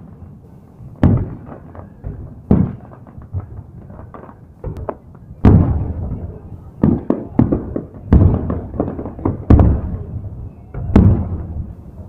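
Aerial fireworks shells bursting in a salute display: loud bangs one after another at irregular gaps of one to three seconds, each trailing off in a rolling echo, with smaller crackling pops in between.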